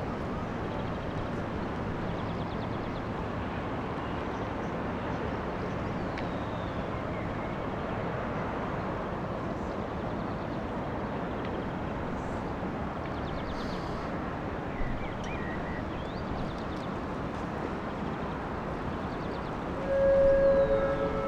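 Steady low rumble of the cruise ship Balmoral passing close by, with a few faint bird chirps. Near the end a loud two-note tone sounds, the second note lower.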